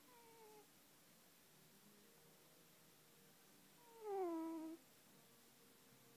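Domestic cat giving two short meow-like calls that fall in pitch: a faint one at the start and a louder, longer one about four seconds in.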